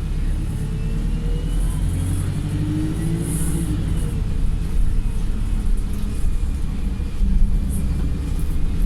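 Wright StreetLite single-deck bus engine running under load, heard from inside the saloon, its pitch rising gently as it pulls. A short high hiss comes about three and a half seconds in.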